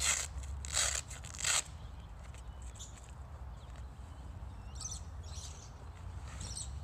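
Leather jacket and canvas pannier rustling and scraping as the jacket is pushed down into the bag: three loud rustles in the first second and a half, then a few fainter ones near the end, over a steady low rumble.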